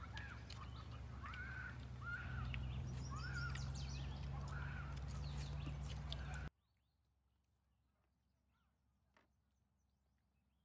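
A bird calling over and over, short arched calls about once a second, over a steady low outdoor background rumble with a few faint clicks. About two-thirds of the way through, all sound cuts off abruptly into near silence.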